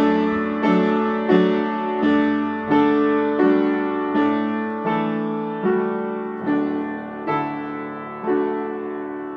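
Upright piano playing a steady pulse of struck notes and chords, the warm-up accompaniment for sung solfa patterns, easing slightly near the end and closing on a chord left to ring and fade.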